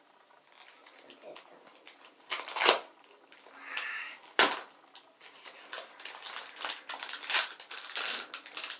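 A small cardboard surprise box being torn open by hand, with a loud tearing noise about two and a half seconds in and a sharp snap about four and a half seconds in, followed by paper and a wrapped packet rustling and crinkling.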